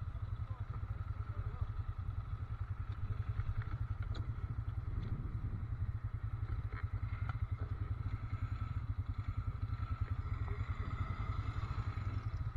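ATV (quad bike) engine idling with a steady low pulse, with a few light clicks and knocks over it.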